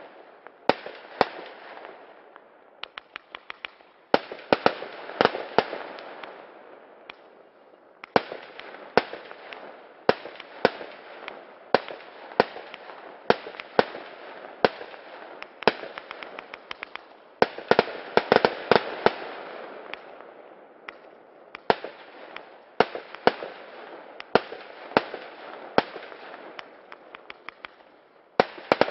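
A 132-shot fireworks battery (cake) firing continuously: a run of sharp bangs, roughly one or two a second, with crackling and hissing effects between them and a few brief lulls.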